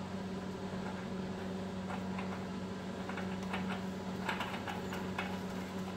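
Faint scattered ticks and scrapes of a gloved hand turning a new spin-on oil filter onto its threaded mount, over a steady low hum.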